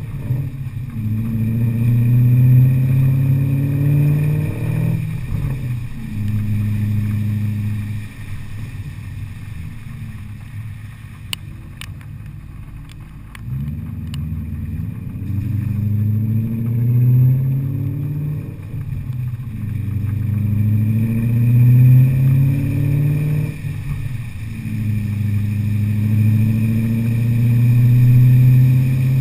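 2001 BMW M5's 4.9-litre V8 through a muffler-delete exhaust with a resonated Tubi X-pipe, accelerating hard through the gears. The engine note climbs in pitch and drops back at each upshift, several times, with a few quieter seconds of easing off midway before it pulls again.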